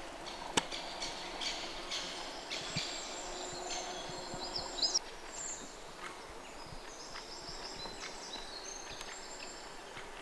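Small forest birds chirping and singing, many short high notes and a few quick falling whistles overlapping, with a couple of sharp clicks.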